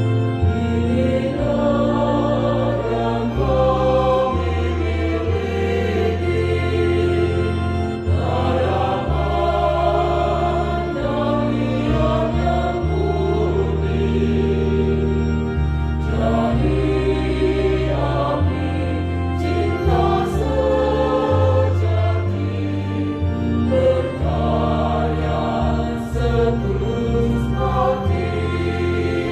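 A choir singing a song in parts, with long sustained low bass notes beneath the voices.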